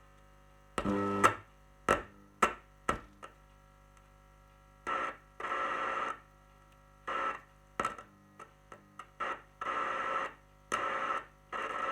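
Car stereo head unit's speaker output hissing with radio static and hum in bursts that cut in and out, with several sharp pops in the first few seconds, as the inputs of its amplifier IC are tested for sound.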